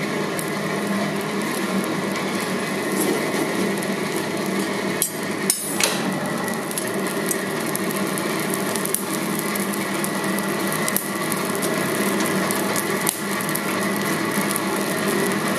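Electric air blower on a coal forge running steadily, fanning the fire, with a brief metallic clink about five and a half seconds in.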